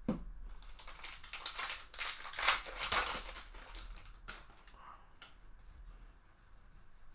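Foil wrapper of a trading-card pack being torn open and crinkled by hand, loudest in the first few seconds, with a few light clicks of card handling after.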